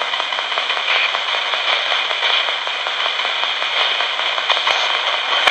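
RadioShack pocket AM radio sweeping the band as a ghost box: steady static hiss from its speaker, chopped by rapid crackling as it skips from station to station.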